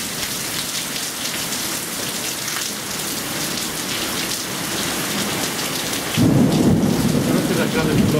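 Heavy thunderstorm downpour falling on a screened patio enclosure and the yard around it. About six seconds in, a sudden loud rumble of thunder starts and carries on under the rain.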